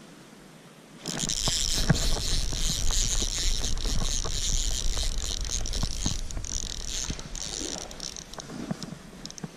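Baitcasting reel being cranked to retrieve line: a steady high gear whir with small clicks, starting suddenly about a second in and fading out near the end.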